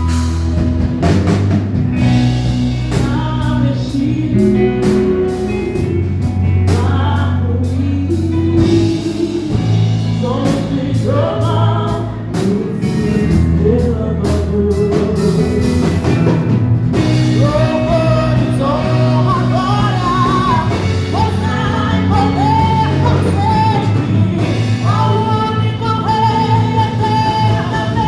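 Gospel worship music: voices singing a melody over a band with drums, bass and guitar.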